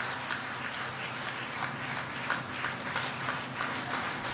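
Audience applauding: a steady spread of hand claps, with single sharper claps standing out several times a second.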